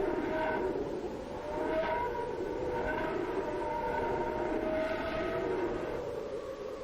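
A steady drone of several held tones layered together, swelling and wavering in slow waves. It is offered as the low sound of the sun.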